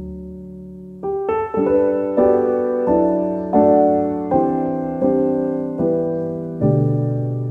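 Background music: a piano holds a low chord, then from about a second in plays a slow run of single struck notes, each ringing and fading before the next.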